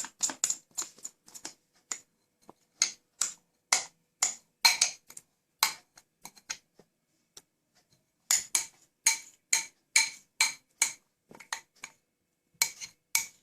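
A spoon clinking against a dish in a run of sharp, irregular taps, sometimes several a second, with a pause of a couple of seconds in the middle, as thick cake batter is scooped up and knocked off into a baking tin.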